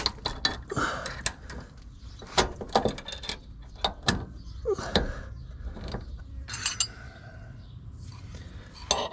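Irregular metallic clinks and knocks of tools and suspension parts being handled while working the lower control arm into line for its mounting bolt, with a brief ringing sound about two-thirds of the way through.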